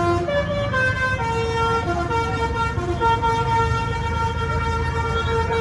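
A tour bus's multi-tone musical 'telolet' horn playing a tune of held notes that change pitch every half second to a second or so, over a low steady rumble.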